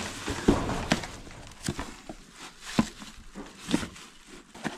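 Cardboard boxes being unpacked by hand: a plastic bag rustling and small cardboard boxes knocking and scraping against the carton. The sound comes as a handful of short knocks with rustling between them, the loudest right at the start.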